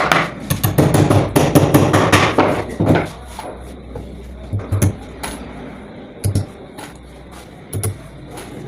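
Hammer blows: a quick run of strikes for about three seconds, then single blows spaced a second or more apart.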